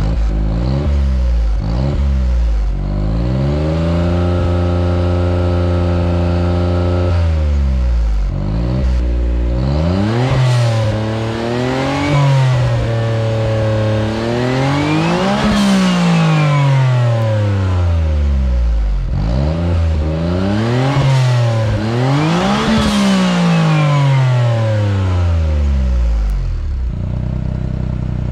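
Autozam AZ-1's turbocharged F6A three-cylinder engine, breathing through an ORIGINALITY catalyst downpipe and a Suzukisport/Mazdaspeed dual-tip muffler, being revved while stationary. A few short blips come first, then a steady held rev, then a string of bigger rev rises that fall back each time, two of them highest, before it settles back to idle near the end.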